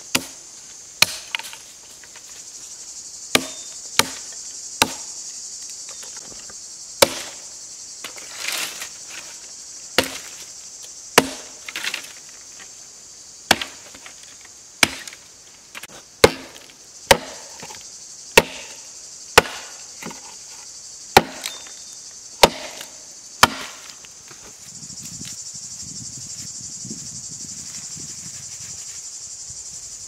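A blade chopping a branch against a wooden stump: about twenty sharp, irregularly spaced strikes that stop a few seconds before the end, over the steady high buzz of insects. Near the end a soft, low rustle follows.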